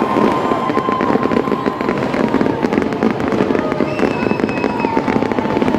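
Fireworks display going off: a dense, continuous crackling and popping of many bursts, with a thin whistling tone running under it.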